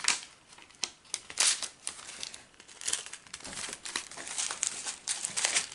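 Crinkling of small plastic drill packets and foil zip-lock baggies being handled, in irregular crackly bursts.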